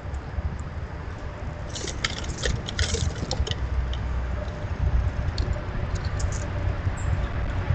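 Squirrels scratching and rustling through dry seed hulls close to the microphone, a cluster of sharp crackling rustles about two to three and a half seconds in and a few single clicks later, over a steady low rumble.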